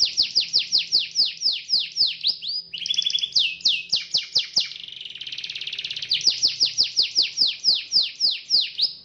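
Domestic canary singing: a fast run of loud whistled notes, each sweeping downward, about five a second. A short buzzy two-toned trill breaks the run about three seconds in, and a quicker rolling trill comes after the fifth second.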